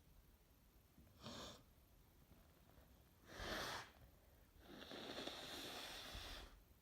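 A sick woman's noisy breaths through a congested nose and mouth: a short rush of air about a second in, a louder, sharper one around the middle, then a long rush lasting about two seconds near the end.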